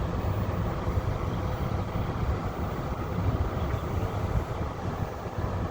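Koldfront window air conditioner running in heat mode, its blower pushing air in a steady rush with a low, uneven rumble and a faint steady hum.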